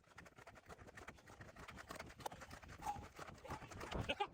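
Footsteps of a person walking briskly at an even pace, getting louder towards the end.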